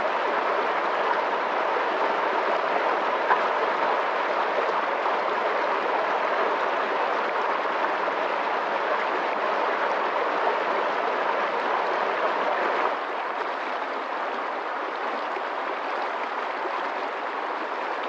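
Fast-flowing water rushing steadily. It gets a little quieter about two-thirds of the way through.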